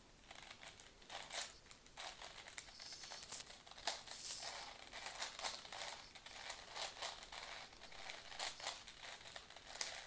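Plastic 4x4 Rubik's cube being turned quickly by hand: a fast, irregular run of soft clicks and clacks as its layers turn.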